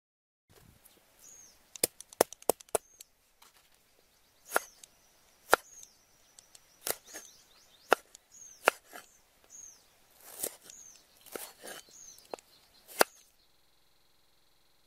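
Large kitchen knife chopping ginger on a wooden chopping board: a run of sharp, irregular knocks, some in quick clusters, stopping about 13 seconds in.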